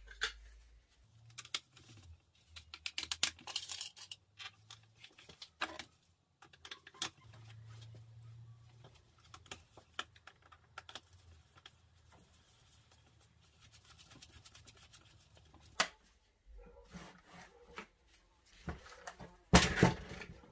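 Scattered light clicks and taps of a hand tool and screws on a Stihl MS 170 chainsaw's housing as its parts are screwed back together.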